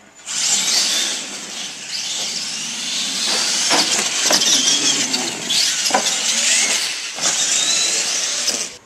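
Radio-controlled monster trucks racing: high motor whine rising and falling in pitch as they speed up and slow down, over a hiss of tyres on the floor, with a few sharp knocks.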